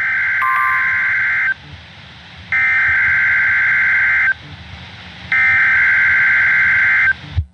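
Emergency Alert System SAME header over weather radio: three identical bursts of screeching digital data tones, each about a second and a half long with a second's pause between, over radio hiss. The bursts mark the start of a new emergency alert.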